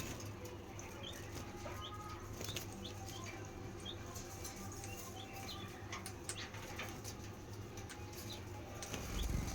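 Small caged pet birds chirping in short calls about once a second, with scattered clicks and wing flutters.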